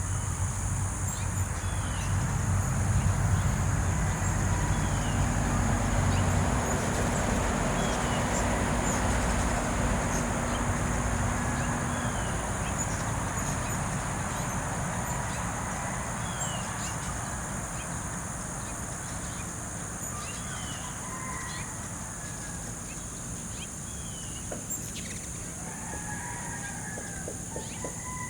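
Outdoor ambience of small birds giving short, falling chirps now and then over a steady high-pitched insect drone. A low rumble swells over the first few seconds and slowly fades, and warbling calls come in near the end.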